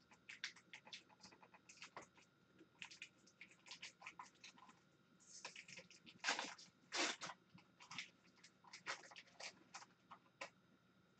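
Foil hockey-card pack wrapper being torn open and crinkled by hand, with many small crackles and a few louder crinkling tears a little past the middle.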